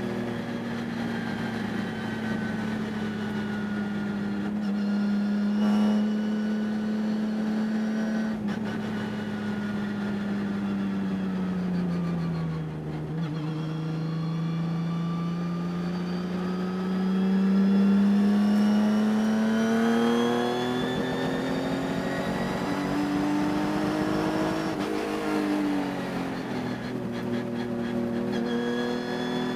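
Race car engine at racing speed. Its note holds, falls to its lowest a little before halfway as the car slows, then climbs steadily under acceleration and drops back near the end. The driver reports the engine had a high-RPM miss that stayed through the race.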